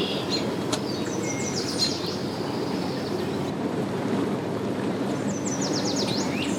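Steady outdoor rumble of wind on the microphone mixed with boat engines at the ramp. A bird sings rapid chirping trills about a second in and again near the end.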